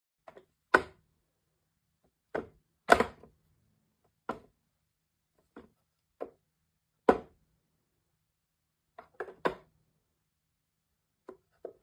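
A series of irregular knocks and thuds, about a dozen over the stretch, some single and some in quick pairs or triples, with silence between them.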